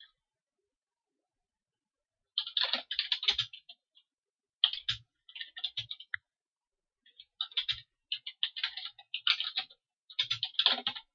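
Computer keyboard being typed on: quick runs of keystroke clicks starting about two seconds in, in three bursts with short pauses between them.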